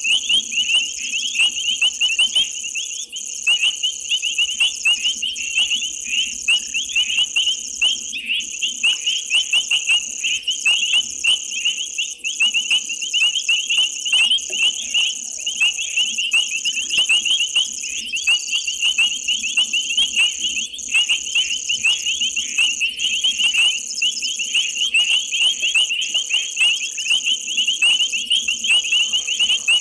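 Night chorus of frogs: a dense, unbroken stream of short, high calls repeated rapidly, over a steady high-pitched insect drone.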